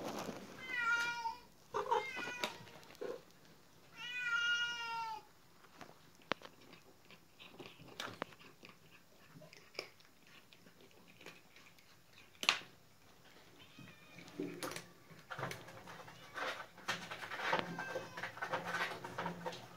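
Cats eating dry kibble from a plastic bowl. A cat meows a few times in the first five seconds, the last meow longer and falling slightly in pitch. After that comes soft crunching and small clicks of kibble being chewed, with one sharp click about halfway through.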